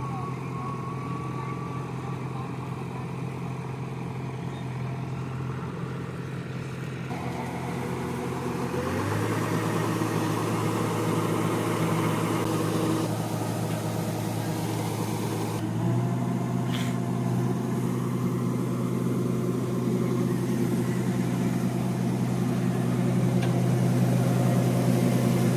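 Diesel engine of a farm machine running steadily. Its engine speed steps up about nine seconds in and again about sixteen seconds in, and it gets louder.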